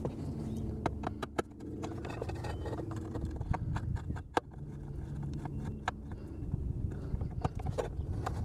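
Scattered light clicks and taps of hands and a small tool working wires into a pump's electrical terminal strip, over a low steady rumble.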